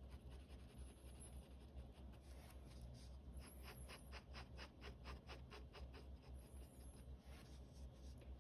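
Pen scratching on sketchbook paper in quick hatching strokes, faint, with a run of about five strokes a second through the middle.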